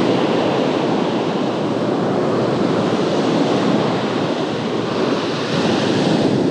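Ocean surf washing up a sandy beach, a steady rush of water with wind on the microphone. A wave's wash swells into a brighter hiss near the end.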